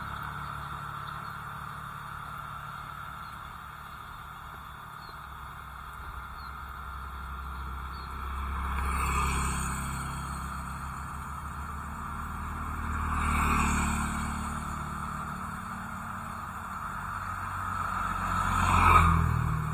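Road traffic: three vehicles pass close by one after another, each swelling up and fading away, the last one the loudest, over a steady low street rumble.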